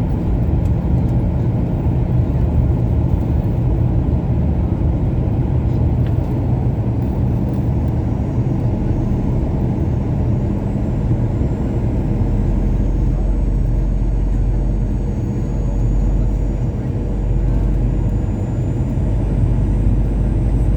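Steady low engine rumble with a faint constant hum, unbroken throughout.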